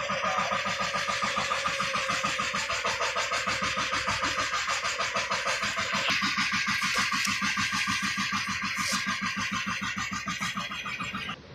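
Outrigger boat's engine running at a steady cruise, with a fast, even chugging beat. The sound stops abruptly near the end.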